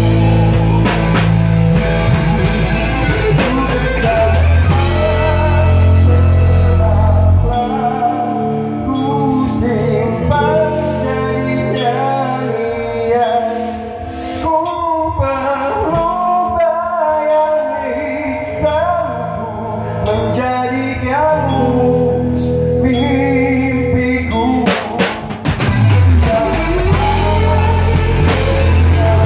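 Rock band playing live in a rehearsal room: a male singer on a microphone over bass guitar, electric guitar and drum kit. About a quarter of the way in the heavy bass drops away, leaving the voice and guitars, and near the end the bass slides back in and the full band returns.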